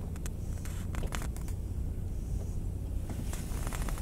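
Steady low rumble of a car moving slowly, heard from inside the cabin, with a few faint clicks.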